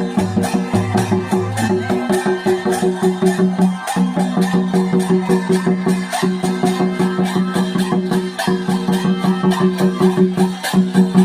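Santhal folk dance music: a fast, even drumbeat with a steady held tone over it that breaks off and restarts every couple of seconds.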